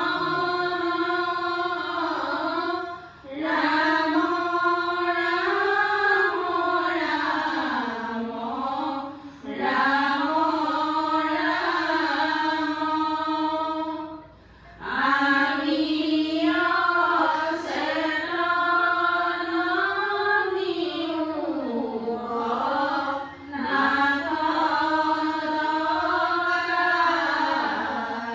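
Devotional chanting, sung in long held phrases that slowly rise and fall in pitch, with a short pause every few seconds.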